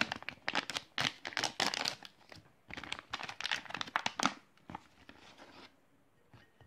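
A Bridgford shelf-stable whole wheat bread ration pouch being torn open and crinkled: a quick run of sharp crackling rips for about four seconds, then softer rustling as the bread is pulled out.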